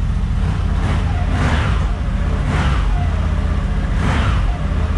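CFMOTO 1000 ATV's V-twin engine running cold on its stock exhaust, a quiet, muted sound, with three short throttle blips.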